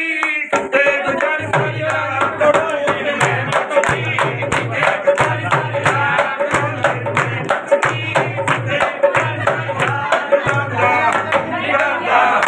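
Punjabi folk singing to a dholki drum, which keeps a steady beat of about four strokes a second under the voices.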